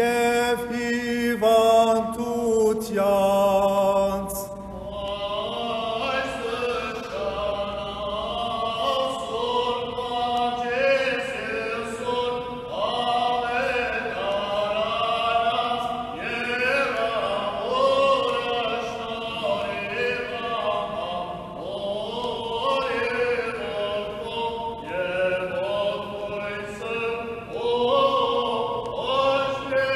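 Armenian liturgical chant: voices singing a slow, melismatic melody. One voice is prominent for the first four seconds or so, then a fuller choral sound carries on.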